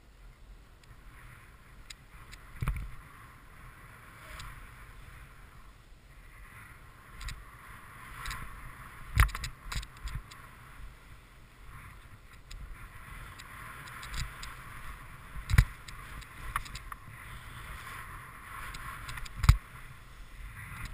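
Snowboard sliding and carving through soft snow, a steady hiss of the board on snow with rumble underneath. Several sharp knocks break through as the board rides over bumps, the loudest things heard.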